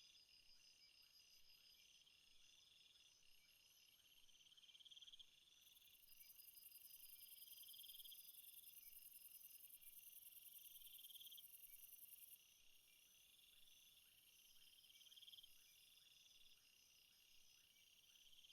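Faint night chorus of crickets and other insects trilling in overlapping layers, with a pulsing trill that swells about every two seconds. A higher, louder insect buzz comes in about a third of the way through and cuts off suddenly about two-thirds in.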